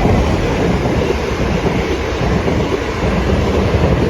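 A train passing through the level crossing, a loud, steady rumble.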